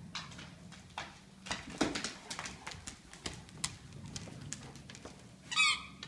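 Dogs' claws clicking and scrabbling on a hardwood floor as they play, in irregular quick taps, with a short high squeak near the end.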